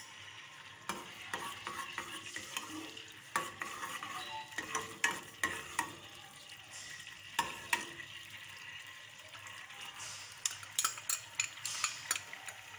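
Oil and butter heating for a tadka in an aluminium saucepan, sizzling faintly while a steel ladle stirs them and clinks against the pan. The clinks come thick and fast near the end as julienned garlic goes into the oil.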